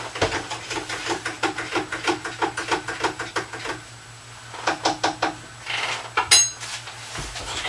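Kitchenware clinking at a counter: a quick run of light, slightly ringing clinks, several a second, then a shorter run and one bright, high ringing clink near the end.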